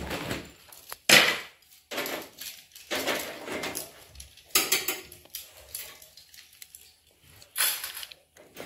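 Wooden skewers being handled and sorted, clicking and clattering against each other and the wire grill in irregular bursts, with a sharp knock about a second in.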